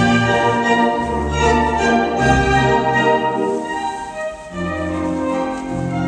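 Orchestral classical music for a ballet: sustained notes and chords that shift every second or so.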